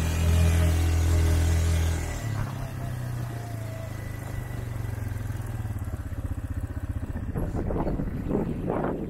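Quad bike engine running under throttle, then easing off to a lower, quieter steady note about two seconds in.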